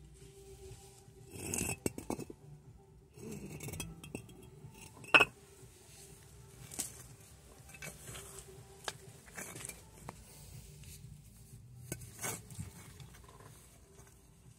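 Scattered clinks, knocks and light scraping of hard objects being handled and set down, with one sharp knock about five seconds in, over a faint steady hum.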